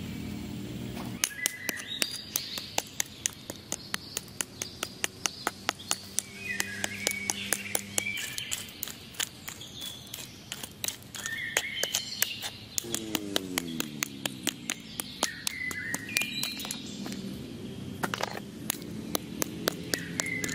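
A small hand hoe chopping into stony soil, with sharp strikes about three a second starting about a second in, then more irregular. Birds chirp over the digging.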